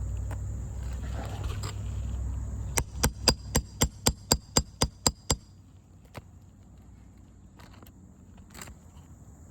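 Roofing hammer striking metal about ten times in quick, even blows, with a bright metallic ring, as when driving a roofing nail or tapping a roof snake under a shingle.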